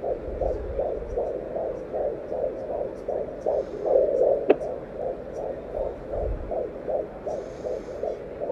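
Fetal heartbeat through a handheld home fetal Doppler's speaker: fast, even whooshing pulses at about three beats a second over a steady hum, with a single sharp click about four and a half seconds in.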